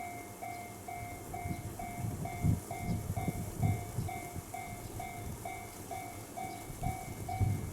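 Japanese level-crossing electronic bell ringing steadily at about two strokes a second. A train passes over the crossing underneath it, rumbling, with heavy thumps of the wheels over the rail joints.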